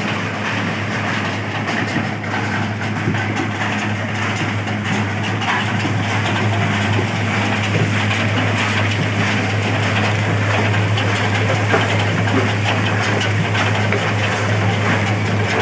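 Engine-driven ice-loading machinery running steadily at a fishing harbour: a constant low engine hum under a continuous clatter and crunch of crushed ice.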